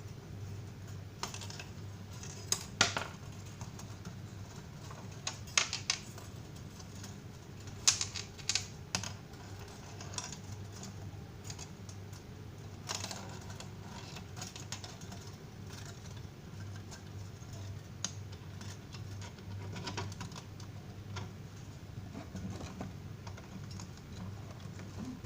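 Irregular sharp clicks and light taps of small hard objects being handled, in short clusters, over a steady low hum.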